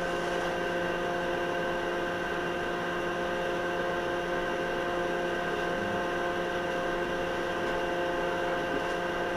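Steady electrical hum inside a standing tram's cab, several even tones held at one level with a faint hiss beneath, from the tram's onboard electrical equipment.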